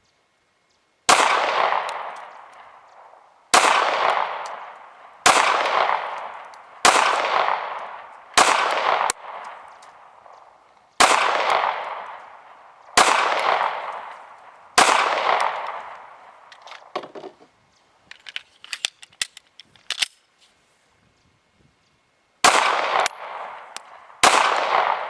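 Smith & Wesson Shield 9mm pistol fired in slow aimed shots, eleven in all, each report fading over a second or so. Two come in quick succession about eight seconds in. After the ninth there is a pause of light clicks and clinks, then two more shots near the end.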